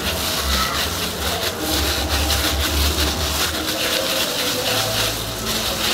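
Plastic-gloved hands squeezing and rolling wet salmon croquette mixture into a ball: a steady squishing and rubbing, with a low rumble underneath.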